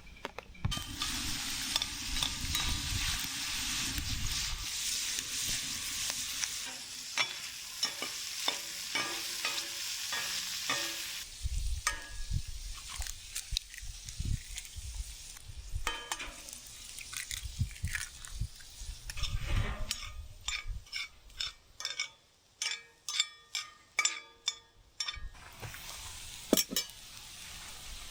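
Food sizzling in a frying pan while a utensil stirs and scrapes it, with scattered clicks of the utensil on the pan. In the second half a quick run of sharp knocks breaks through.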